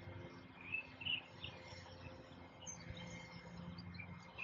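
Quiet outdoor ambience with faint, scattered bird chirps.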